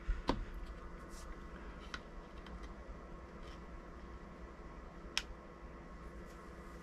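Faint steady hum of bench electronics with a few light clicks, the sharpest about five seconds in, from a scope probe and test leads being handled on a circuit board.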